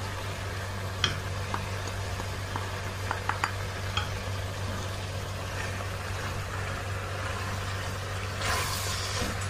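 Chopped vegetables and sambar powder sizzling gently in an aluminium pressure cooker as they are stirred, with a few light clicks of the spoon against the pot and a steady low hum underneath.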